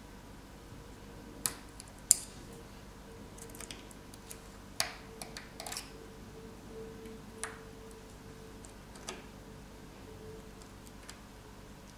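Small sharp clicks and ticks from a pry tool working the charger port flex cable loose from a smartphone's frame, scattered and irregular, the loudest about two seconds in. A faint steady hum runs underneath.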